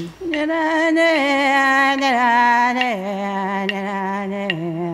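Music: a voice singing long held notes that step down in pitch twice. In the second half, sharp taps come in, about one a second.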